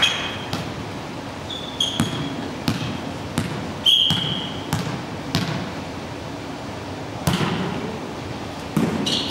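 A volleyball being struck by players' hands and forearms as it is passed back and forth: about a dozen sharp, uneven slaps, up to two a second, each echoing briefly in the large hall. Short squeaks of sports shoes on the gym floor come in between.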